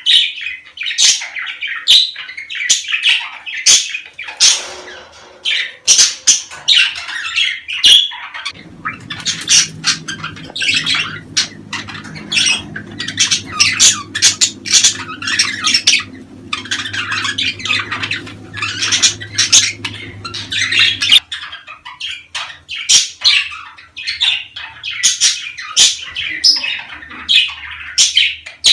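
Budgerigars chattering in mating season: a dense, rapid stream of squawks, chirps and warbling calls. A low steady hum runs underneath for about twelve seconds in the middle.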